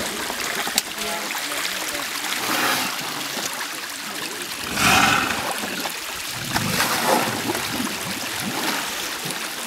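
Shallow river water running and splashing around Asian elephants as they lie and roll while bathing, with louder splashes about three, five and seven seconds in.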